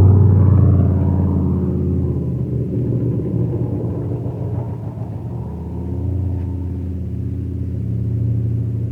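Off-highway vehicle engine running at a steady pitch. It is loudest at the start, eases off over the first couple of seconds, then keeps running at a lower level.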